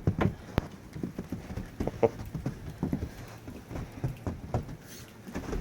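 Deep snow crunching and thudding in a quick, irregular series of soft knocks, a few a second.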